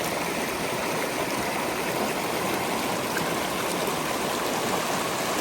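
Creek water rushing steadily over rocks into a pool, an even, unbroken rush.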